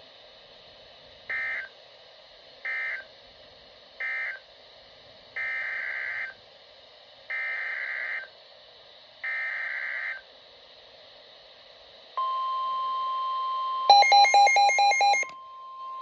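NOAA Weather Radio alert tones through a weather radio's speaker over a steady hiss: three short SAME data bursts ending the flash flood warning, then three longer SAME header bursts for the next alert (a tornado warning). About twelve seconds in, the steady 1050 Hz warning alarm tone starts. Near the end the radio's own loud, rapidly pulsing alert beep sounds over it for about a second and a half.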